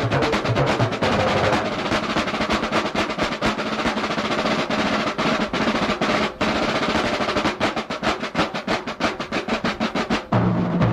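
Drum and bugle corps drum line playing rapid snare drum rolls and patterns with bass drum. Low sustained notes come in near the end.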